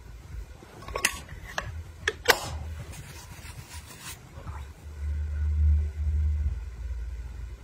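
Clear plastic press-on nail case being handled: a few sharp clicks and taps of the plastic between one and two and a half seconds in. About five seconds in comes a dull low rumble lasting a second and a half, handling noise against the table or microphone.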